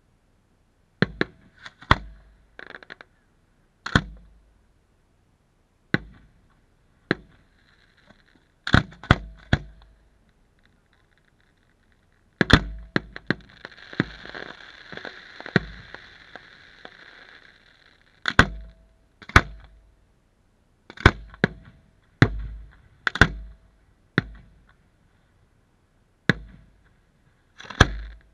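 Aerial firework shells bursting overhead: a series of sharp bangs, irregularly spaced and some in quick pairs, with a few seconds of continuous hiss about halfway through.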